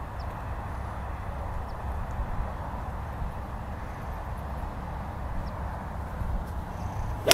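Steady outdoor background noise with a low rumble, then at the very end a single sharp crack as an iron strikes a golf ball off the turf.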